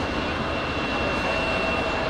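Twin-engine widebody jet airliner climbing out at takeoff thrust: a steady engine roar with a high, steady whine over it.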